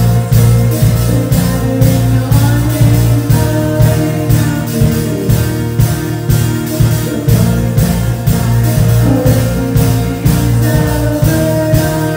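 Live worship band playing a rock worship song: electric guitars, keyboard and a drum kit keeping a steady beat, with a singer's voice over it.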